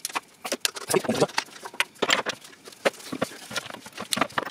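Irregular sharp clicks and light metal knocks of a socket wrench and extension being fitted and worked on an alternator mounting bolt.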